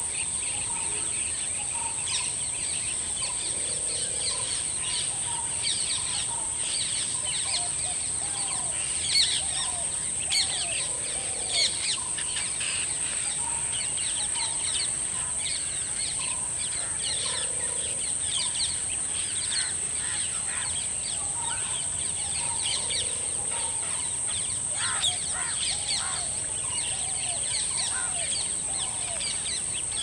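Many small birds chirping and calling over a steady, high-pitched insect drone, with a few louder chirps about nine to twelve seconds in.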